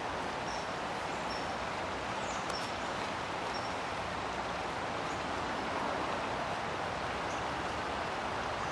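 Steady rush of a brook's running water, with a few faint, short high chirps over it.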